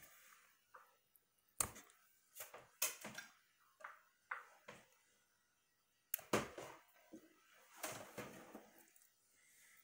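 Scattered clicks and knocks with short bits of scraping: hand tools at work as insulation is stripped from the ends of a lamp cord's wires.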